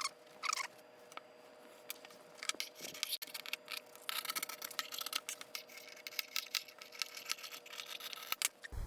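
Paper seat-cover pattern being handled and worked: scattered small clicks and scratchy rustling, busiest from about four seconds in, over a faint steady hum.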